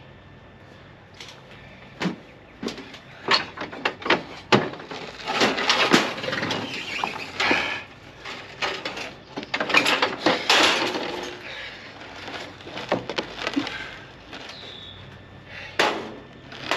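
Clunks, knocks and rattling of a battery-powered zero-turn riding mower being tipped up onto its rear end on its shipping crate base, busiest in the middle and easing off in the last few seconds.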